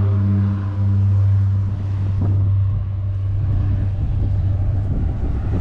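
Seaplane's propeller engines droning at a steady pitch, then fading away over the next few seconds. Wind rushing on the microphone takes over near the end.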